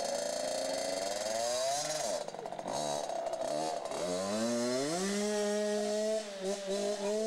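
Small two-stroke engine of a child's mini dirt bike revving as the bike pulls away. Its pitch rises, dips about two seconds in, then climbs again and holds high and steady as the bike rides off.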